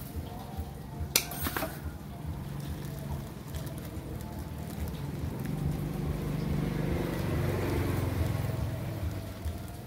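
Clear plastic grafting bag crinkling as hands gather and tie it around the scion, with a sharp snap about a second in. In the second half a low rumble swells and fades away.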